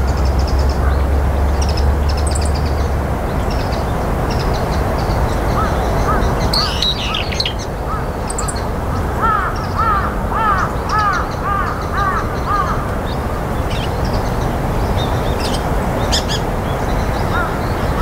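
Brown-eared bulbuls calling: short repeated call notes, with one louder call a few seconds in, over a steady background hiss.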